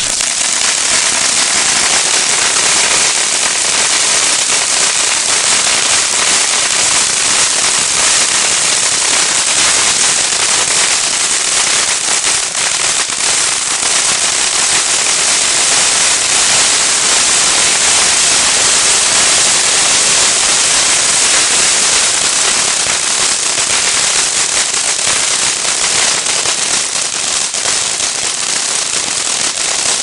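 Pyro Planet White Noise 500-gram firework fountain firing: a dense, continuous crackle over a steady rush of sparks, loud and unbroken throughout.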